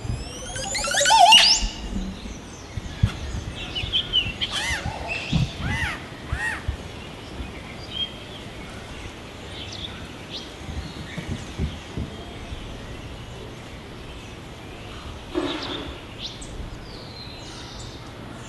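Montezuma oropendola song: a loud liquid gurgle climbing steeply in pitch about a second in, then several shorter arching, liquid notes a few seconds later, with scattered quieter calls after.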